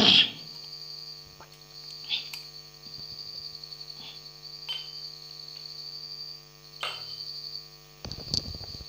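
Steady electrical hum with a thin high whine over it, and a few light clicks and knocks of small objects being handled on a table.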